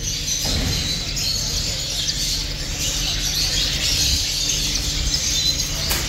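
Many small cage finches chirping together in a busy, continuous chatter of high twitters, over a steady low hum.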